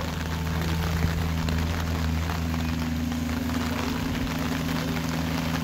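Mini excavator's diesel engine running steadily with a low hum while the machine works its arm.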